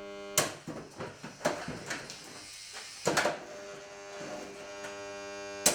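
Several sharp blows, apparently from a golf club, crack against a plastic box fan; the last, near the end, is the loudest. Between the hits the fan's electric motor hums with a buzz. The hum fades after the first blow and comes back about halfway through.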